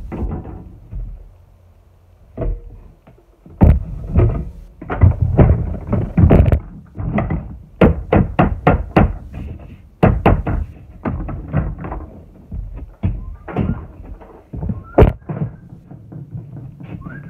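A run of irregular knocks and thunks from the dolly work, some in quick runs of several strikes.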